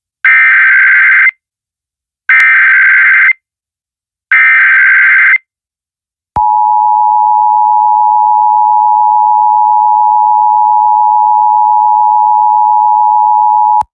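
Emergency Alert System header: three SAME data bursts, each about a second long and a second apart, followed by the two-tone EAS attention signal held steady for about seven seconds and cut off sharply.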